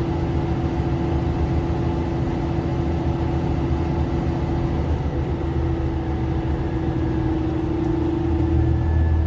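Inside a Mercedes-Benz Citaro C2 LE city bus on the move: engine and drivetrain running steadily with a low rumble and a steady whine, growing a little louder near the end.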